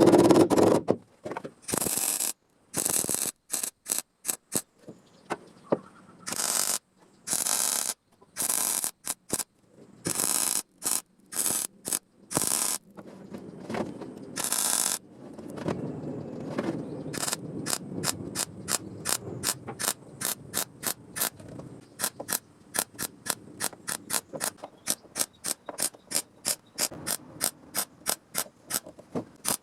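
Ratchet being worked by hand: first a series of quick rasping strokes, then from about halfway a steady run of separate clicks, about three a second.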